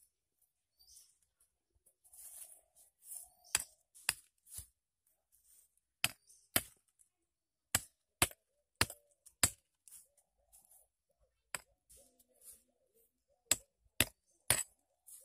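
Stone tool chopping into a thin green tree trunk: about a dozen sharp knocks, mostly in runs of two or three about half a second apart, starting a few seconds in.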